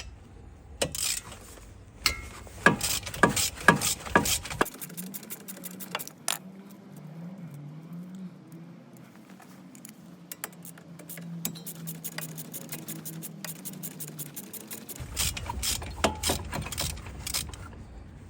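Metallic clicking and clinking of hand tools on a brake caliper as its 7 mm Allen guide-pin bolts are undone. The clicks come thick in the first few seconds and again near the end, with a quieter stretch between that holds sparser clicks and a faint wavering hum.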